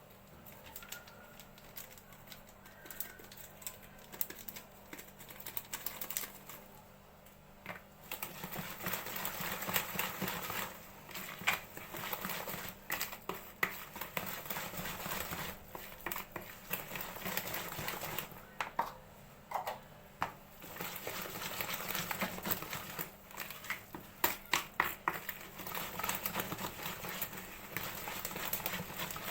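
A utensil clicking and scraping rapidly against a bowl as basbousa batter is mixed, quieter for the first several seconds, then steady with a few brief pauses.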